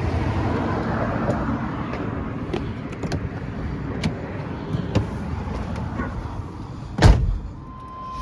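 Steady vehicle rumble with scattered light clicks, then a single loud thud about seven seconds in: a car door slamming shut.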